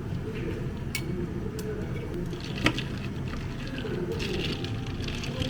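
Cafe work sounds: a few sharp clicks and knocks, the loudest about two and a half seconds in, with light clatter over a steady low machine hum.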